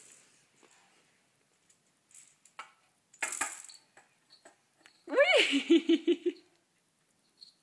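Light clicks and a brief clatter of small wooden toy cars on a wooden zigzag ramp toy. About five seconds in, a toddler's voice gives a gliding squeal that breaks into a string of short giggle-like sounds.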